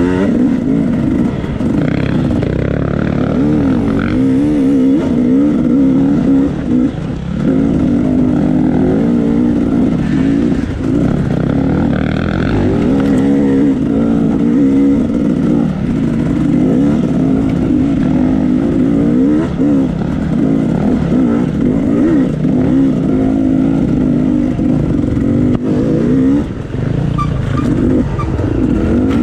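Off-road dirt bike engine ridden hard on a trail, its revs rising and falling constantly with the throttle and gear changes. The throttle is briefly chopped a couple of times, about seven seconds in and again near the end.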